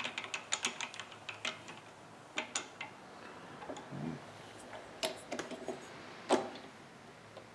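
Scattered light metallic clicks and knocks from hands working a mini lathe's tailstock and the chainsaw cylinder being set up for machining. A quick run of small ticks comes at the start, then single clicks, the sharpest about six seconds in.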